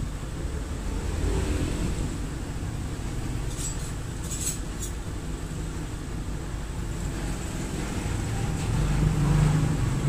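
Suzuki Skydrive 125 scooter's single-cylinder four-stroke engine idling steadily, swelling a little about a second in and again near the end.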